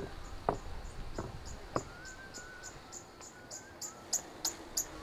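Short high-pitched chirps repeating about three times a second, getting louder toward the end. Under them, a few footsteps in the first two seconds.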